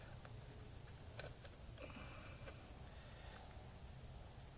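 Insects trilling steadily in a high, even drone, with a few faint clicks over it.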